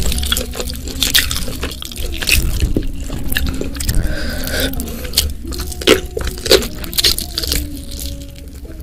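Close-up wet squishing and sticky smacks of bare fingers squeezing curry-sauced stuffed squid and kneading rice by hand, with many short wet clicks.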